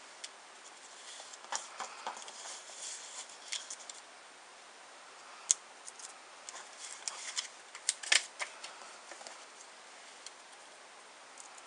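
Light clicks, taps and rustles of paper and card being handled: a cut-out paper spider with foam adhesive dots on its back being lifted and set against a card. A couple of sharper ticks stand out about halfway through.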